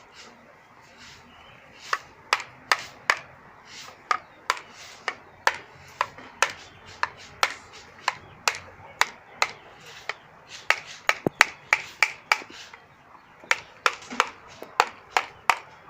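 A knife chopping cassava gives a run of sharp knocks, about two a second, in uneven runs with short pauses.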